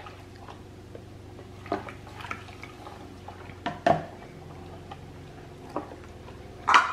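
A silicone spatula stirring sodium hydroxide into a lye-water solution in a plastic container, with a few light knocks and scrapes against the container, the sharpest about four seconds in and near the end.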